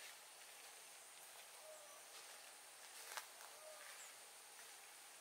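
Faint rural outdoor ambience: a steady high insect hum with a few faint short chirps and a light click about three seconds in.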